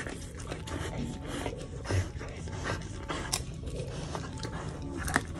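A husky chewing roasted chicken, with crisp crunches and sharp clicks of its teeth at an uneven pace.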